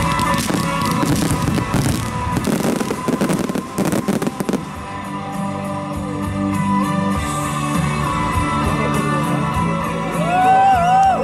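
Background music with fireworks bursting and crackling for the first four seconds or so, then thinning out to music alone. Near the end, a crowd starts whooping and cheering.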